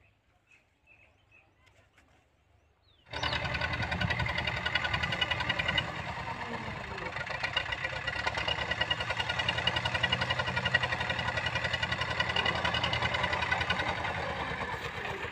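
Tractor's diesel engine running steadily with a fast, even pulse as it pulls a cultivator through the soil. It cuts in suddenly about three seconds in, after a few faint quiet sounds, and stops abruptly at the very end.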